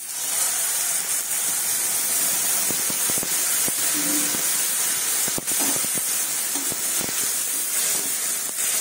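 Loud steady sizzling hiss of liquid hitting a hot aluminium kadai of onions and potatoes, starting suddenly, with scattered scrapes and clicks of a spoon stirring against the pan.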